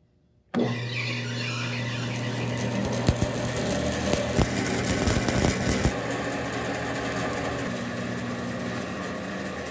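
A 36-inch band saw running with no cut being made: a steady motor hum and the whir of the blade and wheels, with a few sharp ticks about three to six seconds in.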